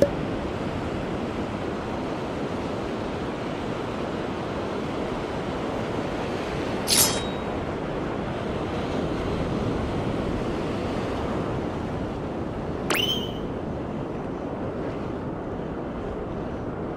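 Surf breaking steadily on a sandy beach, with wind on the microphone. Two brief, sharp, high squeaks cut through it, about seven and about thirteen seconds in.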